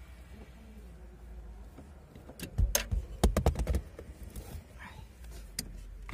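A quick run of about eight sharp clicks and knocks from hand work on the Nexia's dismantled steering column, about halfway through, with a few fainter clicks after it over a low steady hum.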